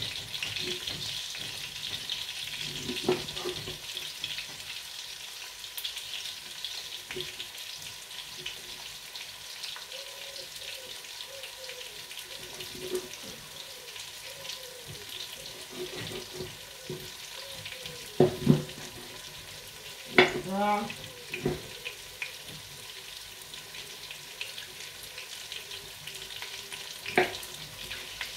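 Meat sizzling steadily in a steaming stew pot, with a few sharp knocks of a knife on a wooden cutting board as meat is cut, loudest near the end.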